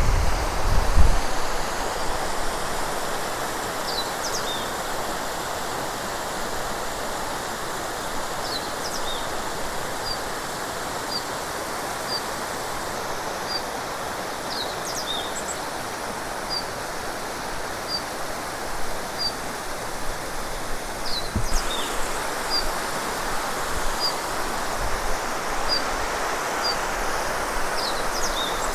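Waterfall rushing steadily. A bird repeats a short high note about once a second through much of it, with a few other chirps; the water grows a little louder about two-thirds of the way in.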